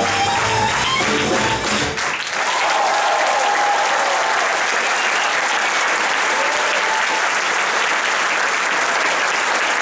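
Klezmer band led by clarinet, with piano, upright bass and drums, playing the final notes of a freylech, ending sharply about two seconds in. Audience applause follows for the rest of the time.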